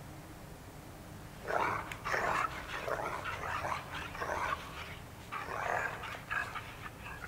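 Dog yips and low growls in a string of short, uneven bursts, starting about a second and a half in.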